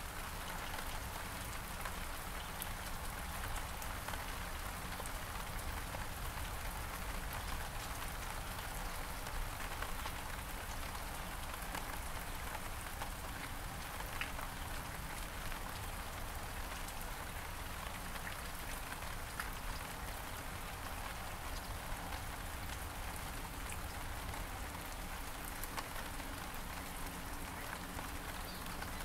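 Steady rain falling on several kinds of surfaces, an even hiss with a few sharper drop taps scattered through it.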